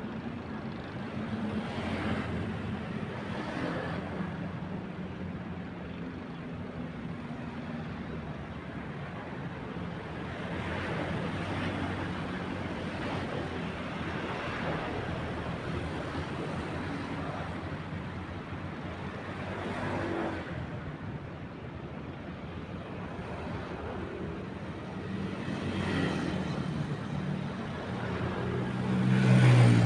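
Engines running steadily under a wide rushing noise, swelling and fading several times as something passes, loudest near the end.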